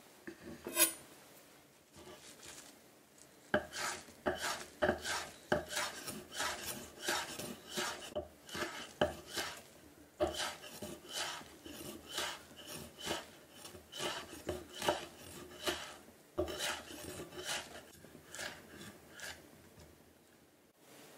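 Chef's knife slicing a stack of basil leaves into thin strips on a wooden cutting board: a run of crisp, even cuts, about two a second, each stroke ending as the blade meets the board, with a short pause near the end before the cuts resume. A single sharp knock sounds about a second in.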